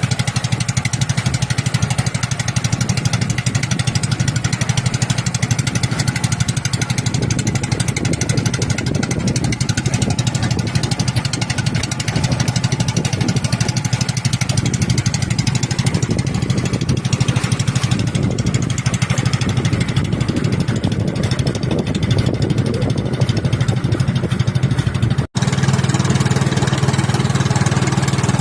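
A small engine running steadily with a rapid, even firing. It cuts out abruptly for an instant about 25 seconds in, then carries on with a steadier, fuller low hum.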